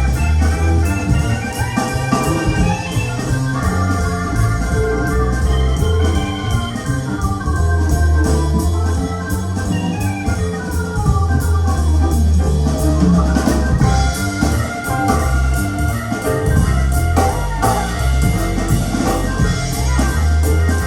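Instrumental music with a strong, steady bass line, played back through KEF LS50 Meta speakers with dual subwoofers.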